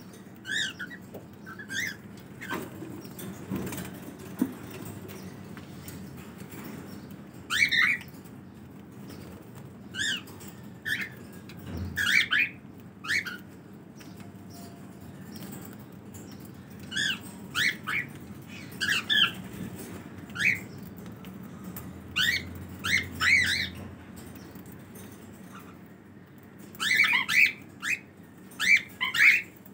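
Cockatiels chirping: short, sharp calls in scattered bursts of two or three, coming thicker near the end.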